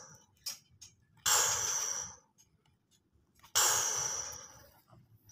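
A person making breathy 'pshh' blast noises with the mouth, twice, each starting sharply and fading out over about a second: imitated firing for a toy military tank.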